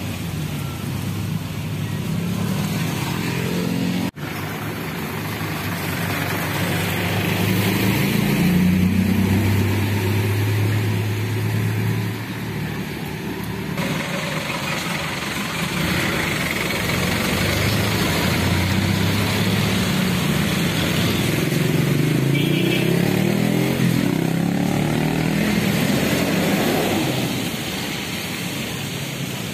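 Street traffic: motor vehicle engines running and revving as they pass, their pitch rising and falling, with several climbing revs near the end.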